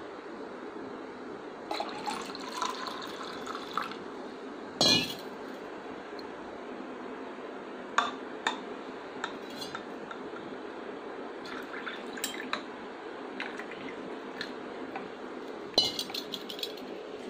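Milk poured into a plastic cup, the filling tone rising in pitch a couple of seconds in, then a loud knock about five seconds in. Light clinks and taps follow as a glass lactometer is set into the milk and touches the cup, over a steady background hum.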